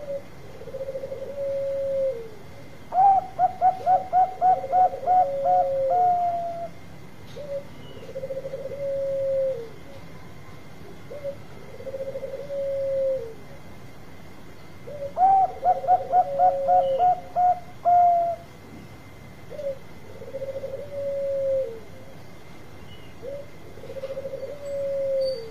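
Zebra doves (Bangkok perkutut) cooing. One gives a short trilled coo that drops at its end, about every two seconds. Twice a quick run of about ten staccato higher coos, ending in a longer note, sounds over it.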